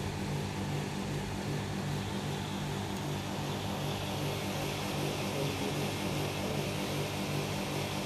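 Steady propeller hum with a hiss, like a small multirotor drone in flight.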